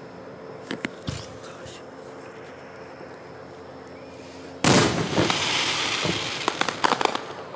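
Fireworks: a few scattered pops, then about four and a half seconds in a sudden loud aerial shell burst followed by about three seconds of dense crackling and sharp pops as the red and white stars open.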